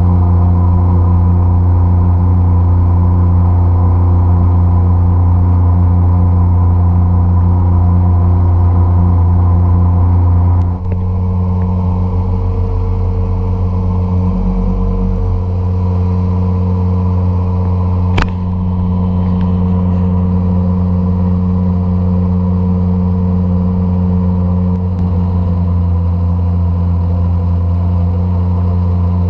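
A 52cc two-stroke outboard engine running steadily at cruising speed, pushing the kayak along. Its note shifts slightly about eleven seconds in, and there is a single sharp click around eighteen seconds in.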